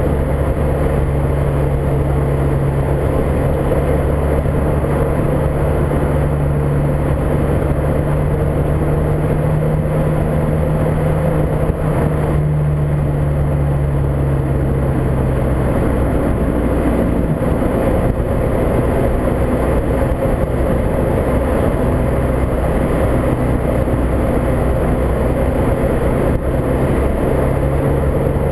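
Volkswagen Mk5 GTI with its 2.0 T FSI turbocharged four-cylinder running steadily on the road under heavy wind noise, the engine note dropping a little about halfway through. A few faint knocks stand out: the front-suspension clanking over bumps that the owner is trying to track down.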